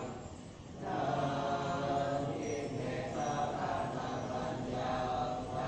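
Thai Buddhist monks chanting a sutra together in unison, held on a steady pitch: the evening chanting. The chant dips briefly at the start and comes back in full about a second in.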